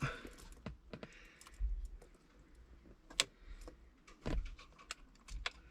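Scattered metallic clicks and clinks from a 15/16 socket wrench working the steering wheel retaining bolt loose, with a sharp click about three seconds in.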